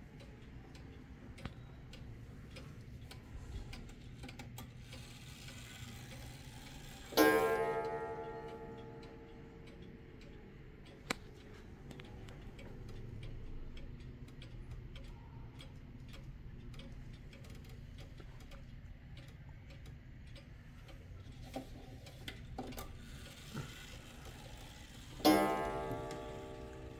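Kienzle pendulum wall clock ticking steadily, with its coiled wire gong struck twice, about seven seconds in and again near the end. Each strike rings out and fades slowly.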